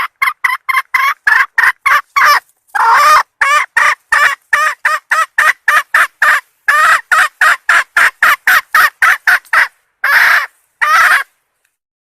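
Red junglefowl hen calling the cock: a quick run of short clucking notes, about four a second, ending in two longer notes near the end. It is a recorded lure call for trapping wild junglefowl.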